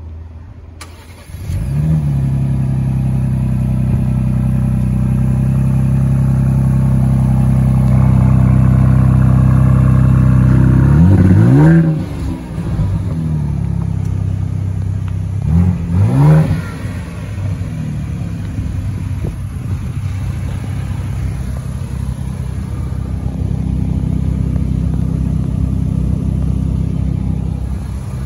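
The 2023 Ford Bronco Raptor's 3.0 L twin-turbo EcoBoost V6 cold-starting: it cranks and catches a second or two in, then runs at a high cold-start idle that climbs slowly. Near the middle it is revved in two quick blips, then settles to a lower, quieter idle.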